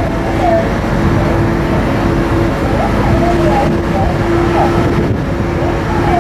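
Steady low rumble of a departing ferry's engines, with a steady hum that breaks off now and then and faint voices in the background.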